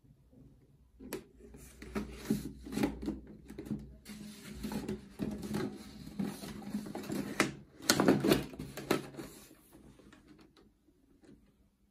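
Folded origami paper lamp shade being handled: irregular paper rustling with small clicks and knocks, loudest about eight seconds in, then dying away.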